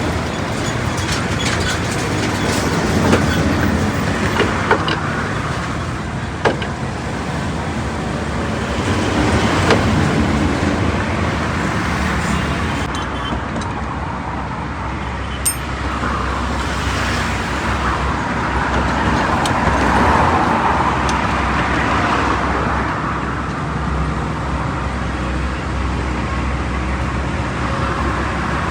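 Highway traffic going past steadily, swelling twice as vehicles pass close by, with a few sharp knocks scattered through it.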